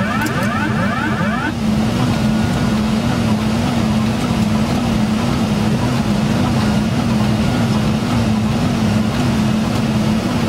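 Aircraft engine drone heard from inside the plane: a steady rushing noise with a low hum that wobbles in pitch about one and a half times a second. A quick series of short rising chirps comes in the first second and a half.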